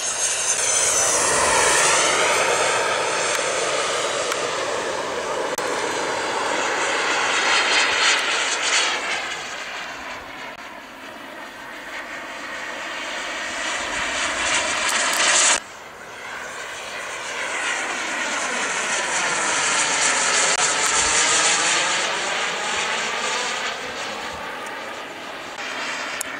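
Radio-controlled model jet flying past, its jet engine making a loud rushing noise with a sweeping, phasing quality that swells and fades with each pass. The sound drops off abruptly about halfway through, then builds up again on another pass and fades near the end.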